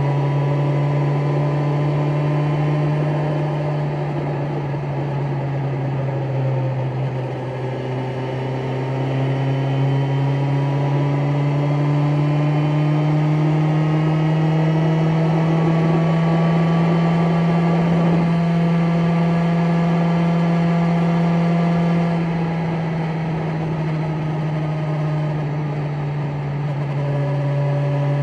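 BMW S1000XR's inline-four engine pulling in sixth gear at low revs. Its note climbs slowly as the bike gathers speed, drops a little about three-quarters of the way through as the throttle eases, then starts rising again near the end.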